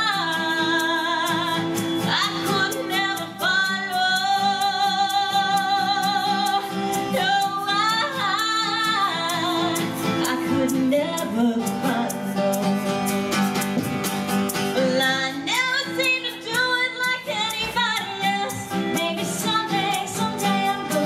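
Woman singing long held notes with vibrato over a keyboard accompaniment in a live country song.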